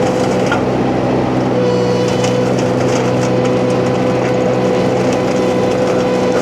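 A mini skid steer's engine runs at working throttle, driving a hydraulic flail mulcher with a steady high whine as it shreds brush. The whine drops out about half a second in and comes back about a second later.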